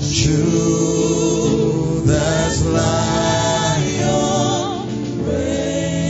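Gospel choir of men and women singing a slow worship song with a male lead, long held notes with vibrato over a steady sustained backing.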